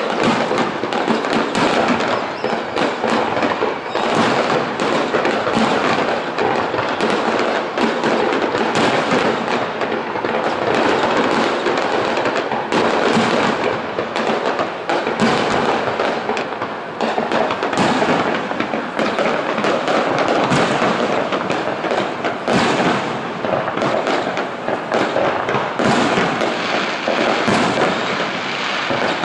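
Fireworks display: aerial shells bursting one after another in a dense, unbroken run of bangs and crackle.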